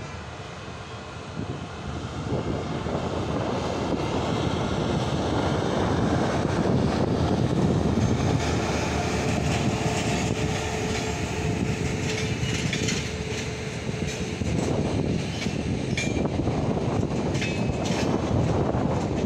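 Electric locomotive-hauled LHB passenger train passing close by at speed. It grows louder over the first few seconds as the locomotive comes level, then the coaches rumble by steadily with a steady whine through the middle. In the last few seconds the wheels click over rail joints.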